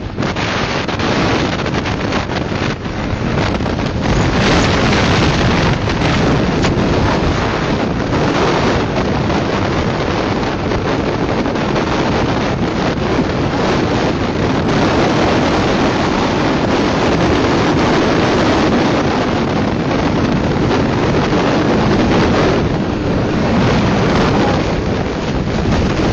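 Steady rush of wind buffeting the microphone on a moving 50cc moped, with the moped's engine running beneath it.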